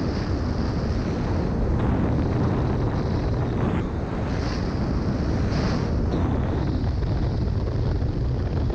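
Heavy wind buffeting on a GoPro's microphone while skiing fast, at about 65 to 70 km/h, with a few short higher hisses of ski edges carving the groomed snow.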